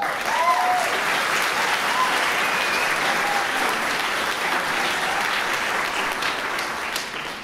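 Audience applauding, starting suddenly as the last chord of the music dies away, with a few short cheers near the start; the clapping thins and fades near the end.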